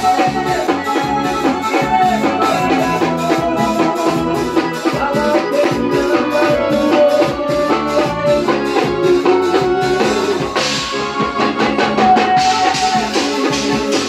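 Live forró band playing: accordion melody over a drum kit and percussion keeping a steady beat. The sound grows brighter in the highs about two-thirds of the way through, as more cymbal comes in.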